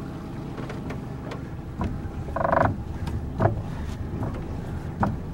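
Honda 30 four-stroke outboard motor running steadily at low throttle as the boat gets under way, not yet at cruising revs. A few light knocks and one brief rasp about halfway through.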